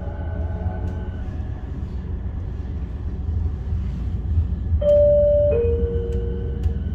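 New MBTA Green Line light-rail car running, with a steady low rumble and a faint electric motor whine that fades in the first second or so. About five seconds in, a two-note descending chime sounds: a high tone, then a lower one that rings on and fades. This is the on-board chime ahead of the next-stop announcement.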